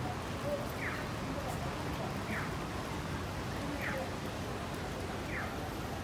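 Rain on a wet city street, a steady hiss of rain and traffic. A short falling chirp repeats about every one and a half seconds.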